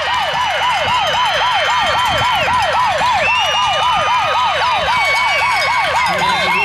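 An electronic siren in rapid yelp, about four rising-and-falling whoops a second, loud and steady throughout.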